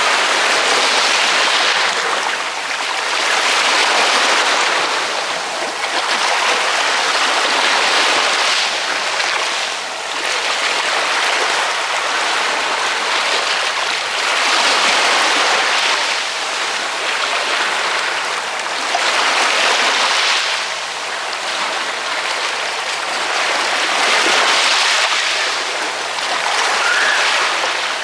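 Ocean waves washing in: a steady hiss of surf that swells and fades every few seconds.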